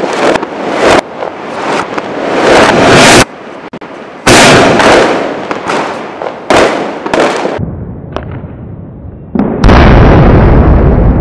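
Anil Fireworks Golden Goose 3-inch sky shot shells launching and bursting: a series of loud, sharp bangs and bursts with short gaps between them. Near the end comes one deep, heavy boom, slowed down in a slow-motion replay.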